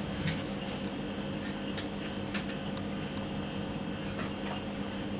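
A few light plastic clicks and taps as a battery pack is fitted into an RC rock crawler, over a steady background hum.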